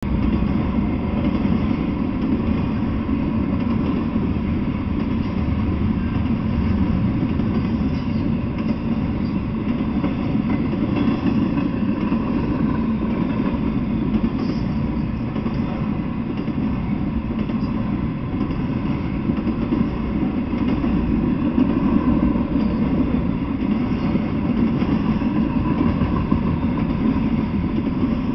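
Intermodal freight train cars, trailers on flatcars and containers in well cars, rolling past close by: a steady, unbroken noise of steel wheels on the rails.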